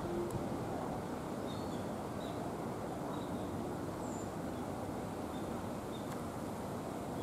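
Steady low outdoor background noise, with a few faint, short bird chirps scattered through.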